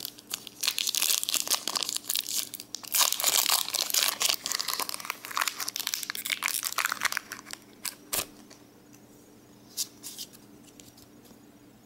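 Foil Pokémon booster pack wrapper crinkling as it is handled and torn open, densest from about three to seven seconds in, followed by a single sharp click.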